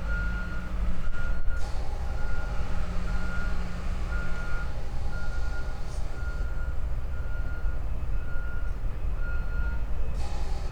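A reversing alarm beeping at one steady pitch, a little more than once a second, over the low rumble of a running engine.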